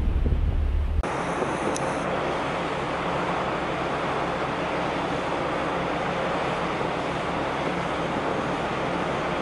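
Wind buffeting the microphone on a ferry deck for about a second, then after a cut a steady rush of wind and sea water.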